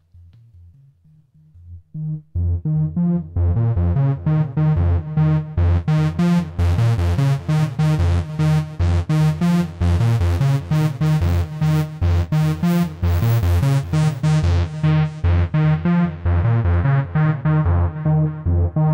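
Alisa 1377 Soviet analogue synthesizer, its modified filter driven over MIDI, playing a rapid repeating bass-note pattern while its filter cutoff and resonance knobs are turned by hand. The notes are faint and dull at first, jump in level about two seconds in, brighten sharply over the next few seconds, and dull somewhat again near the end.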